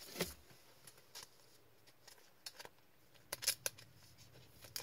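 Scattered light clicks and taps of trading cards and rigid plastic card holders being handled and set down, with a quick cluster of sharp clicks a little past three seconds in.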